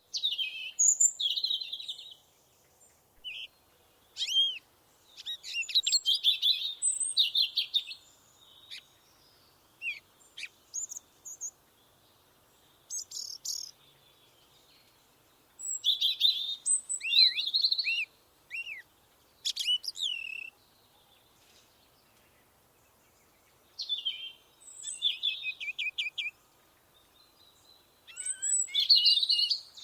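Songbirds singing in short phrases of one to two seconds, with quick trills and down-and-up sweeping notes, separated by quiet pauses.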